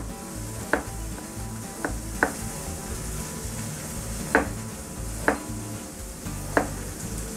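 Chef's knife slicing an onion, the blade knocking on a plastic cutting board six times at uneven intervals. Underneath, a steady sizzle from a thin steak frying in a hot skillet.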